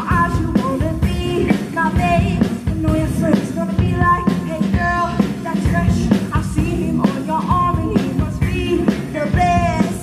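Live rock band playing: electric guitars, electric bass and drum kit, loud and continuous.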